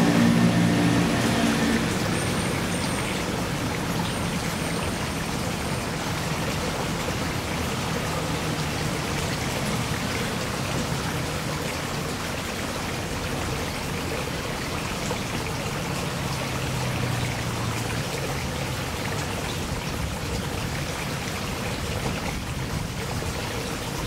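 Steady running water in a garden pond, an even splashing rush. An engine hum from passing traffic sits under it, fading out about two seconds in and returning faintly for a few seconds past the middle.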